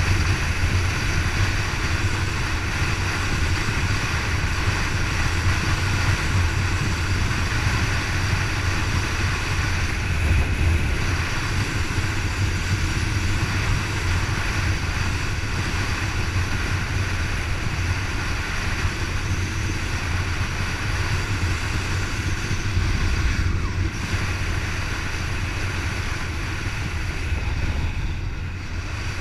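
Kawasaki KLR650 single-cylinder motorcycle riding at a steady road speed, its engine running under a loud, steady rush of wind over the camera. The rush eases slightly near the end.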